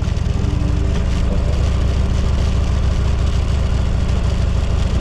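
Motorcycle engine running steadily, a deep even rumble.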